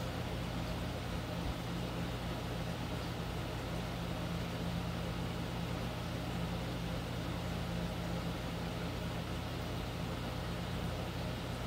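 Steady low electrical or mechanical hum with a constant hiss over it, unchanging throughout.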